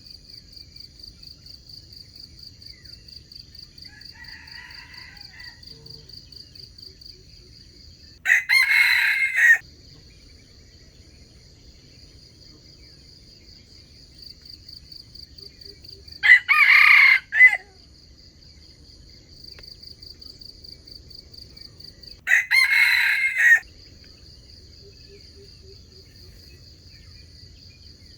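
Wild junglefowl rooster crowing three times, each crow short and several seconds apart, over steady insect chirring.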